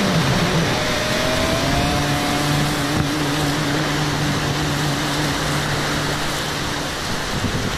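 Steady rush of high, muddy whitewater breaking and churning around a kayak running a rapid, heard close up from the boat.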